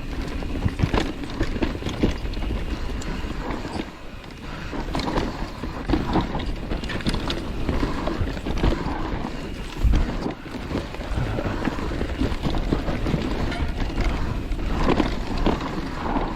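Mountain bike rolling down a dirt singletrack: tyres crunching over dirt and rocks, with the bike clattering and rattling over bumps and wind rumbling on the microphone.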